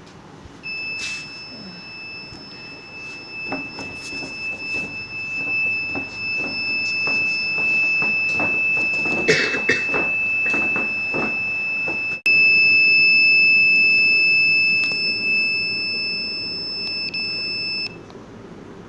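Laser beam burglar alarm's buzzer sounding one continuous high-pitched tone, the sign that the beam has been broken, with scattered knocks and handling noises. About twelve seconds in there is a sharp click and the sound gets suddenly louder; the tone cuts off near the end.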